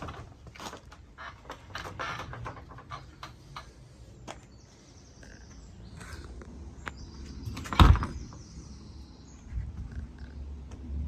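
Garage door moving on its rollers, with a wheel squeaking in two high-pitched stretches, scattered clicks and knocks, and a loud thump about eight seconds in.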